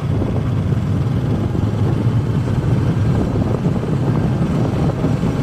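Steady low rumble of a vehicle engine running while moving along a road.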